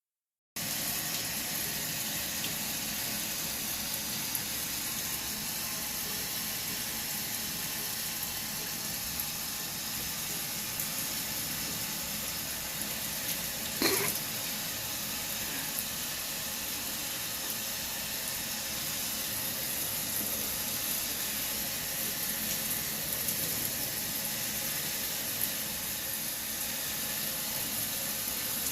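Steady, even hiss with one short sharp knock about halfway through.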